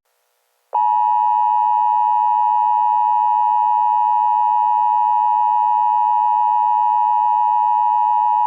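Emergency Alert System attention signal: a loud, steady electronic two-tone alert sound that starts under a second in after a brief silence and holds unchanged, announcing an emergency message.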